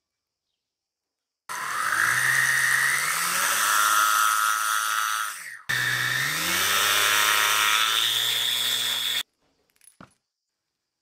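Small brushed DC motor driving a belt-driven spindle, spinning up with a rising whine, winding down about halfway through, then spinning up again and running steadily until it cuts off abruptly. A faint click follows near the end.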